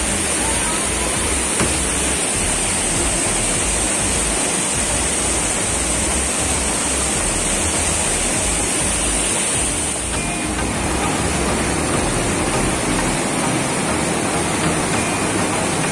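Steady roar of a waterfall's rushing water, with uneven low rumbling underneath.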